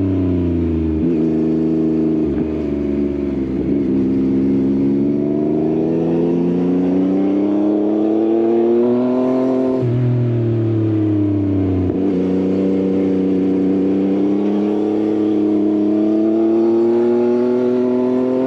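Yamaha XSR900 inline-three engine through an Akrapovič exhaust under way: revs fall with a few quick breaks in the first few seconds, then climb steadily, drop sharply at a gear change about ten seconds in, and climb again after another shift at about twelve seconds.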